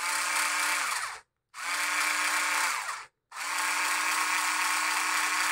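Flipkart SmartBuy 3.6V cordless screwdriver running unloaded with a flexible shaft extension attached, its small motor whining steadily. It is switched on in three runs with short gaps between, the pitch dropping as it winds down after each release.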